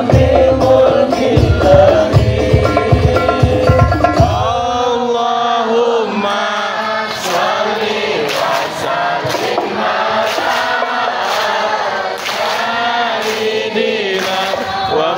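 Sholawat sung by a gathering to hadroh frame drums; about four and a half seconds in the drums stop and the voices carry on chanting unaccompanied.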